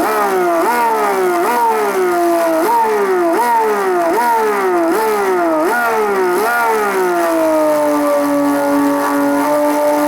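Engine sound for a slot car on a test bench, its pitch repeatedly jumping up and sliding back down about every 0.7 seconds, then holding at a steady lower pitch from about seven seconds in.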